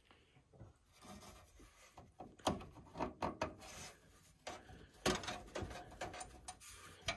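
Faint rubbing, then from about two and a half seconds in a run of irregular knocks, clicks and scraping as a hand presses and shifts a motherboard against the PC case to hold it in place.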